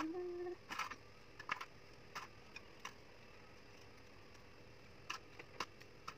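Graham crackers being set down one by one in a glass baking dish: scattered light clicks and taps, about seven of them at uneven gaps, against a quiet room.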